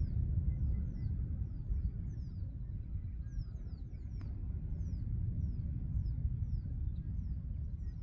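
Wind rumbling on the microphone by a river at dawn, with small birds repeating short, high chirps that fall in pitch, about two a second. A faint click comes about four seconds in.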